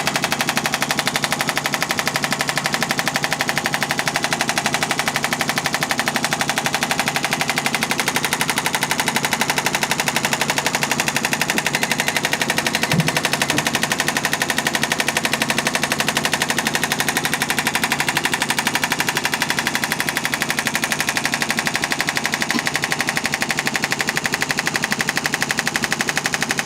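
Handheld percussive therapy device hammering on the neck muscles in a fast, steady, unbroken run of pulses, with its motor humming underneath.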